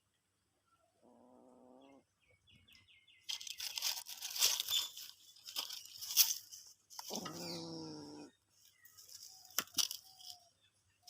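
A cat's drawn-out, low cry twice, the second louder and lower, with a rustling, crackling scuffle between them. Short high chirps are heard around the cries.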